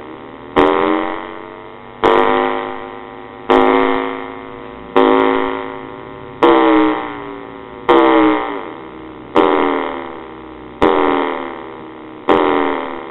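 Homebuilt MFOS Noise Toaster analog synthesizer, played through a small guitar amp, repeating a note about every second and a half. Each note starts sharply and fades out, its tone bending as a knob is turned.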